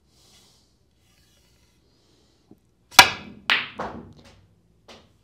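A light click of the cue tip striking the cue ball, then half a second later a loud sharp click as the cue ball hits the black on a short, stabbing screw shot struck low and hard. Two quick knocks follow as the black goes into the pocket, and a small knock near the end.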